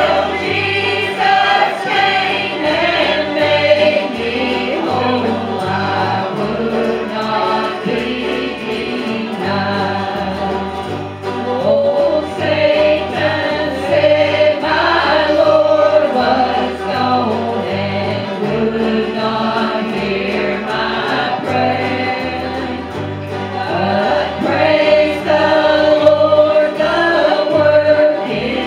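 A man and a woman singing a gospel hymn together into microphones, backed by strummed acoustic guitars and a plucked upright bass.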